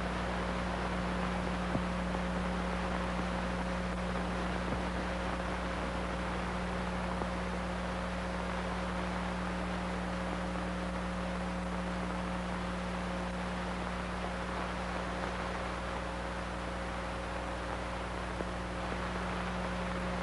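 Steady hiss with a low electrical hum, the background noise of an old archival film recording, with nothing else sounding.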